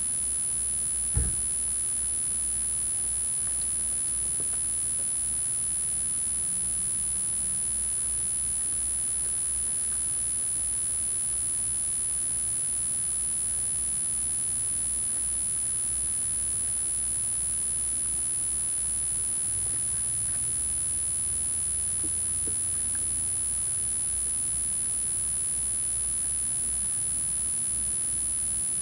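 Steady low wind rumble on an outdoor microphone, with a constant high-pitched whine and a single thump about a second in.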